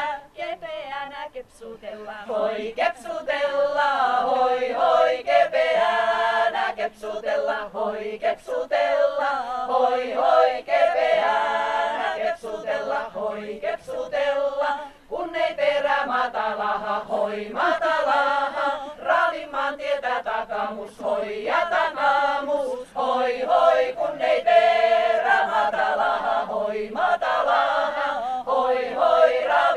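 Small women's folk-song ensemble singing a Finnish folk song a cappella, line after line with brief breaths between phrases.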